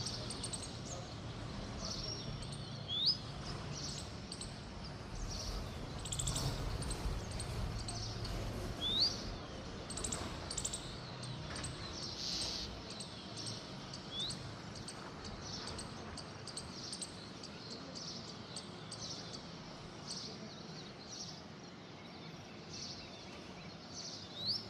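A bird chirping: short, sharply rising calls a few seconds apart, with fainter chirps in between, over steady background noise.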